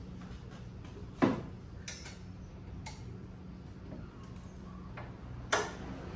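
A few sharp metallic clicks and clinks of bolts and a hex key being handled while fitting a steel motorcycle rear-box bracket, with two louder clicks, one a little over a second in and another near the end.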